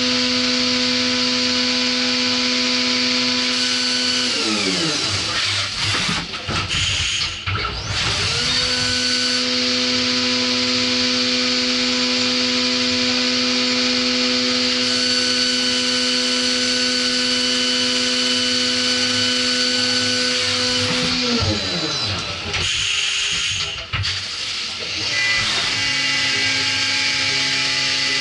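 Haas VF4 CNC vertical machining centre cutting metal under flood coolant: a steady pitched spindle whine over the hiss of coolant and cutting. The whine winds down about four seconds in and again near twenty-one seconds, and spins back up after each short noisy break, the last time at a slightly different pitch.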